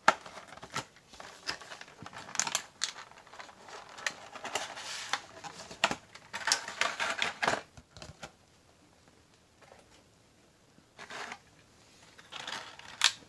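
Clear plastic blister packaging being pried apart and handled, crackling and clicking in irregular bursts, with a pause of a few seconds past the middle.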